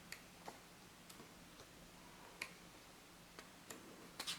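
Near silence with faint, irregular small clicks and taps, about eight of them, the loudest near the end: the sound of hands handling the unboxed accessories and packaging.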